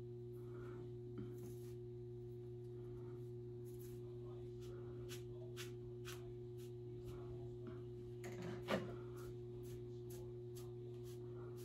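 Faint, short rustling strokes of synthetic wig hair being worked through and re-parted, over a steady low electrical hum.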